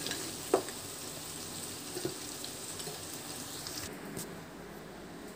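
A steel spoon knocking against steel cookware as boiled chicken pieces are scooped from the pan into a bowl: one sharp clink about half a second in and a fainter one about two seconds in, over a low steady hiss.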